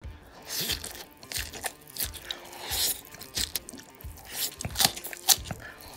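A person biting and chewing crunchy food close to the microphone: about ten crisp crunches spread over the few seconds.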